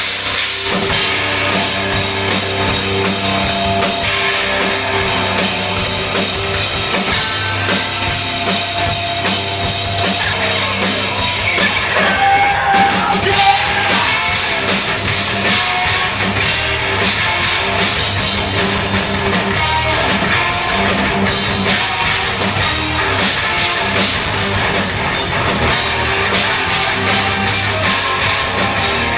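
A rock band playing live, with electric guitars and a drum kit.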